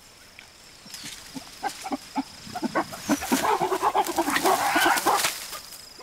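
Silverback gorilla's intimidation display: a run of short calls and pops that comes faster and louder, building to a dense, loud outburst in the second half before it dies away.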